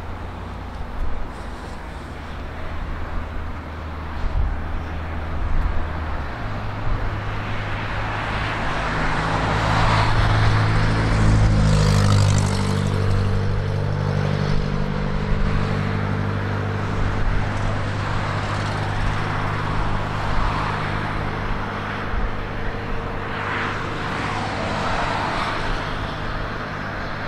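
Steady low engine hum that steps up in pitch about six seconds in, grows louder to a peak around the middle, then slowly eases off.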